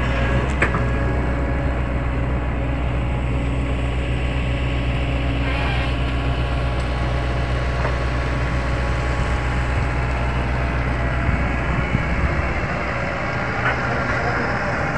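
A heavy vehicle engine running steadily with a low, even hum; the deepest part of the hum fades away about two-thirds of the way through.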